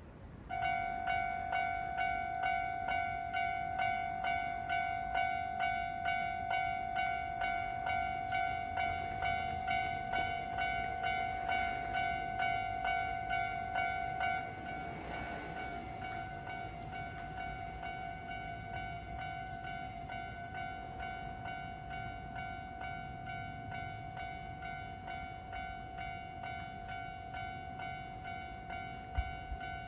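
Japanese railway level-crossing warning bell starting up about half a second in, sounding its electronic tone in a steady pattern of about two strikes a second. About halfway through it drops to a lower volume and keeps ringing.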